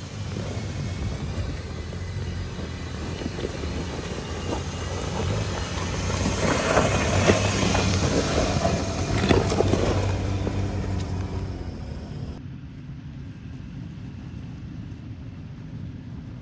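Jeep Wrangler Unlimited's engine running low and steady as it crawls over a rocky ledge, with tyres crunching and grinding on rock, loudest in the middle stretch. About three-quarters of the way through, this gives way to a quieter engine hum from a Toyota Land Cruiser creeping down a rocky trail.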